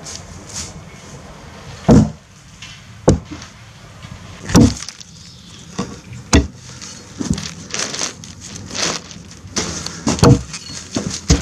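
Helko Werk Tasmanian axe chopping into a felled log, bucking it through a V-notch: sharp blows of steel into wood, about eight of them at uneven intervals of one to two seconds, some much harder than others.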